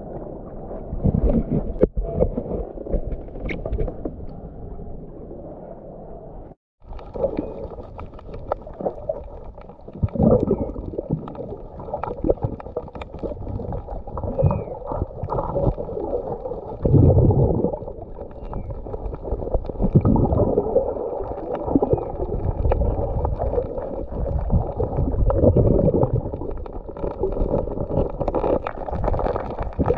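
Muffled underwater water noise from a camera below the surface: gurgling and rushing water with repeated low swells. There is a brief dropout about seven seconds in.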